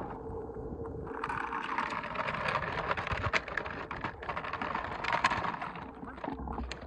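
Hard plastic wheels of a child's toy ride-on motorcycle rolling and scraping over asphalt and concrete as it is pushed up onto a curb, with a few short knocks.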